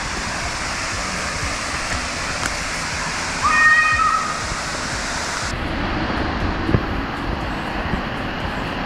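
Steady rush of a waterfall, with a short high call about three and a half seconds in; a little past halfway the hiss suddenly loses its highest part.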